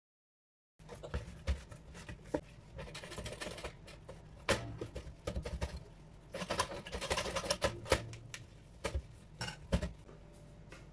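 A sponge and then a cloth rubbing and wiping the plastic casing of a toaster, with scattered small clicks and knocks against it. It starts after about a second of dead silence.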